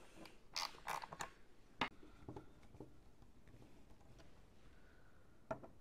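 Faint handling noise: a few sharp clicks and taps in the first two seconds and one more near the end, with scattered faint ticks between. The taps come from a plastic door mirror assembly and its screws being handled and fitted with a screwdriver.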